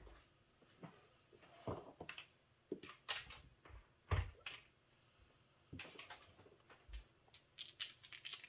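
Irregular light clicks and taps from a craps stick and chips being handled on a felt craps table, with a dull thump about four seconds in and another near seven seconds.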